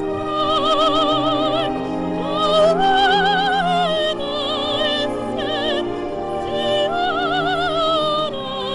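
A woman singing into a microphone, holding long notes with a wide, even vibrato over sustained accompaniment.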